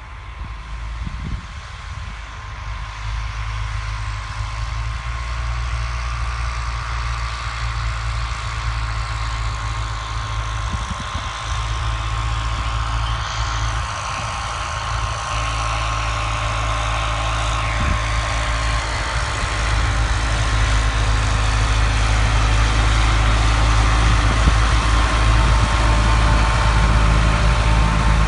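New Holland tractor's diesel engine running steadily under load while pulling a 24-disc harrow, growing louder toward the end.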